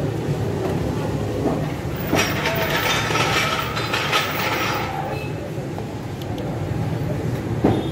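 Steady hum of a Honda Civic's engine running under the open bonnet. From about two to five seconds in there is a burst of scraping and rattling, as a flat screwdriver works at the plastic intake air temperature sensor and its connector on the air filter box. A single sharp click comes near the end.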